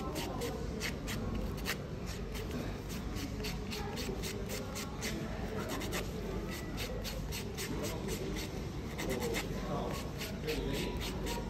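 Nail file scraping over dipping-powder nails in quick, irregular strokes, several a second, over a steady low hum.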